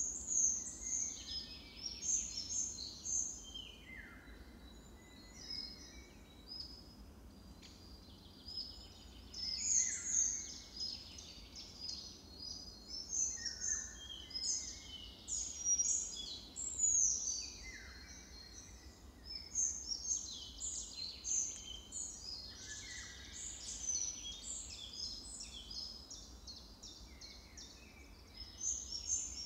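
Several songbirds singing at once, a continuous chorus of short overlapping whistled and chirping phrases, some sliding downward in pitch.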